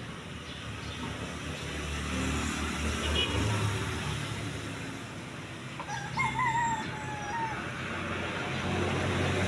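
A rooster crows once, about six seconds in, a single wavering call lasting about a second and a half. Under it runs the low, steady hum of a Toyota minivan's engine, the van moving off slowly.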